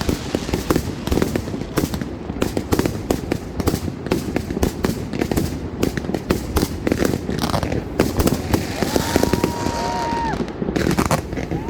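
Fireworks display: a rapid, continuous crackle and pop of many small bursts. Late on, a steady high tone is held for about a second and a half.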